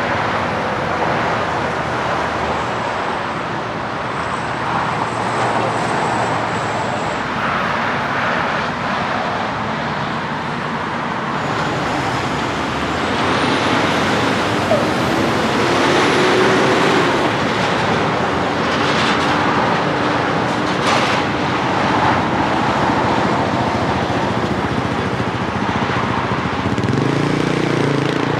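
Truck-stop traffic: tractor-trailer diesel engines and passing cars make a steady road noise. An engine note rises slowly partway through, and another engine changes pitch near the end.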